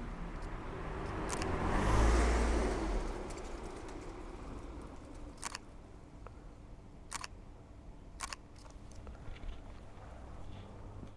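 A car passing unseen, its noise swelling to a peak about two seconds in and fading away. Then three sharp clicks of a camera shutter, a second or so apart.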